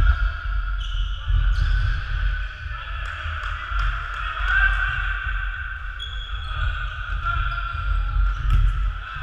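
Echoing sports-hall ambience during an indoor frisbee game: distant players' voices and footfalls on the wooden floor, over a steady low rumble.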